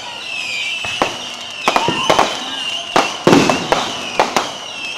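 Fireworks and firecrackers going off: about ten sharp, irregular bangs over a high whistling tone that rises and falls.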